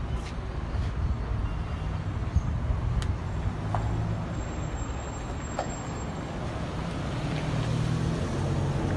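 Road traffic: a vehicle engine running with a steady low rumble, with a few faint short chirps over it.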